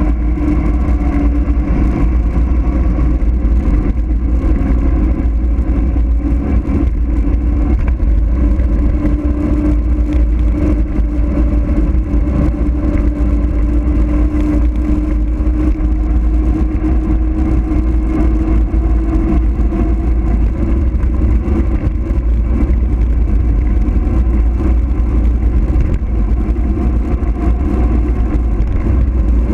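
Wind rushing over the microphone on a fast mountain-bike descent of a paved mountain road, over the hum of the rolling tyres. The hum drifts slightly in pitch and fades about two-thirds of the way through.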